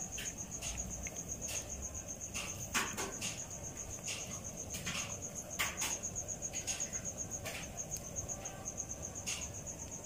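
Crickets chirping in a steady, rapid, high-pitched pulsing trill, with short crackles every second or so over it.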